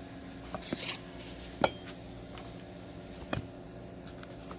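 Objects being handled and set down on a work surface: a brief rustle, then two sharp clacks, the first the loudest, as the wiring harness cable with its connectors is put down. A steady low hum runs underneath.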